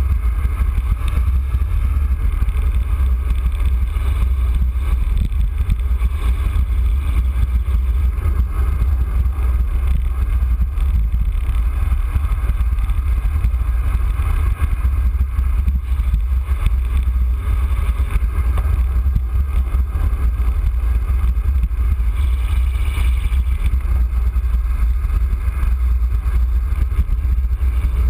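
Wind buffeting the microphone of a handlebar-mounted camera on a road bike descending at speed: a loud, steady low rumble, with a fainter rushing hiss of the bike's tyres on wet pavement above it.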